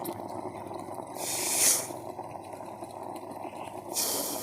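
Two loud breaths drawn over an electric facial steamer, one about a second in and one near the end, as steam is inhaled through the nose and mouth. Under them, the steamer's boiling water gives a steady hiss.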